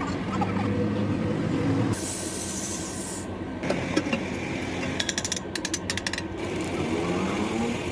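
Workshop machinery at work on a truck axle housing: a steady machine hum, then about a second of hiss, then a fast rattle of clicks about five seconds in.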